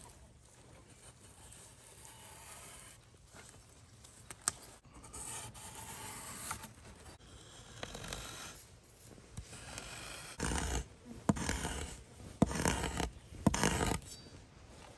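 Rustling and scraping in brush and leaf litter, with a single sharp knock about four and a half seconds in and a run of louder rustling bursts near the end.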